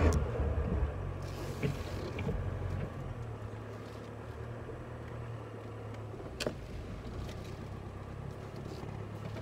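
Nissan Pathfinder R51 four-wheel drive, heard from inside the cabin, running steadily as it drives along a sand track. A sharp knock comes right at the start, the loudest moment, and another about six and a half seconds in, with a brief hiss in between.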